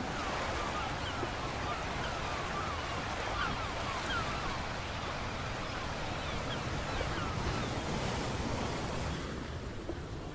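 Calm sea washing gently over a rocky shore at low tide: a steady hiss of water, with many short faint chirps above it. The high part of the sound thins out near the end.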